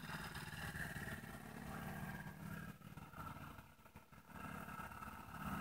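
A faint, steady engine hum from a vehicle running. It fades out about three seconds in and returns near the end.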